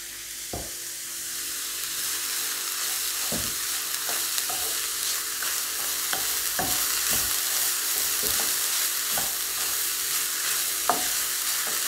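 Shredded cabbage and carrot sizzling steadily in a black non-stick kadai while a wooden spatula stirs and tosses them, scraping through the vegetables with a few scattered knocks against the pan.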